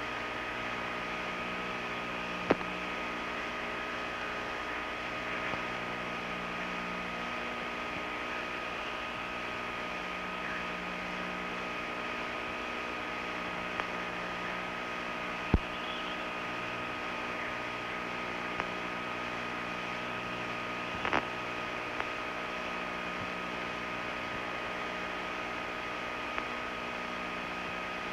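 Steady hum and hiss with several fixed tones, broken by a few short clicks, the loudest about two and a half seconds in and about fifteen seconds in.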